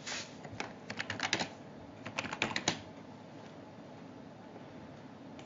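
Typing on a computer keyboard: two quick runs of keystrokes in the first three seconds or so, as a search term is typed in.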